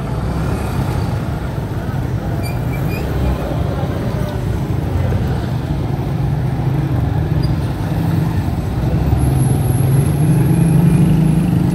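Busy street traffic: vehicle engines running and passing in a steady low rumble. A nearby engine grows louder in the last few seconds.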